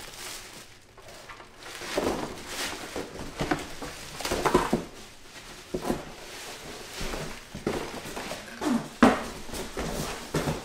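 Plastic wrap crinkling and a large panel scraping and knocking against a cardboard box as it is lifted out. The noise comes in irregular bursts, with the sharpest knock about nine seconds in.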